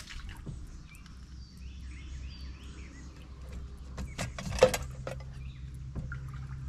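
Scattered knocks and clatter of gear being handled on a plastic kayak, with one sharp knock about halfway through, while small birds chirp in the first half.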